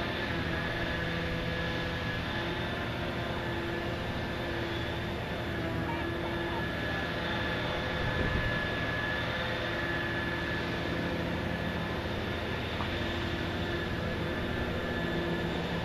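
Liebherr P995 backhoe dredger at work: a steady machinery drone with a high whine and lower tones that come and go, and a dull thud about eight seconds in.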